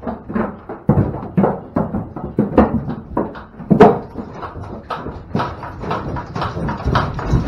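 Holstein cows' hooves clomping and knocking on the cleated floor of a livestock trailer as they walk up into it, an irregular run of thuds two or three a second, with one loud knock about four seconds in.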